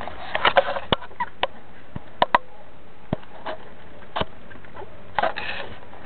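Pit bull puppies nursing from their mother: short snuffling noises and scattered sharp clicks and knocks, with two louder rustling spells, one near the start and one about five seconds in.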